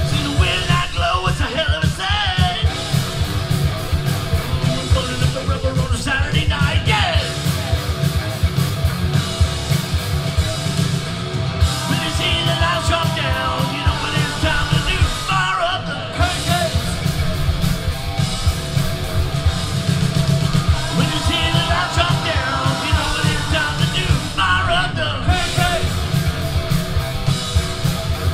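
Live rock band playing loud: distorted electric guitars, bass and a steady drum beat, with a man singing and shouting the lead vocal at several points.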